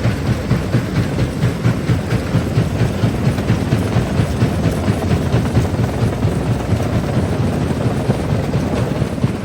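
Quarry jaw crusher running and crushing stone, with a loud, heavy, rhythmic pulse of about three beats a second.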